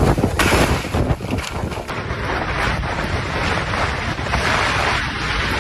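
Strong wind buffeting the microphone over surging water and waves, gusty at first and then a steadier rush of noise after about two seconds.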